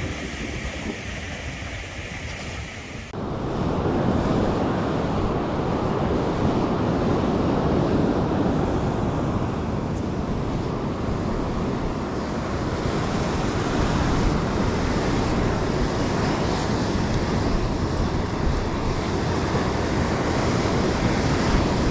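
Sea surf breaking and washing on a sandy beach, mixed with wind on the microphone; the noise becomes abruptly louder about three seconds in, then continues steadily.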